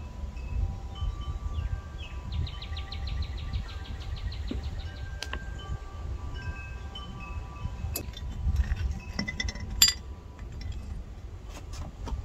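Chimes ringing, with many overlapping tones that start and fade at different times over a steady low rumble. A quick run of ticks starts about two seconds in and lasts about three seconds, and a few sharp clicks follow, the loudest about ten seconds in.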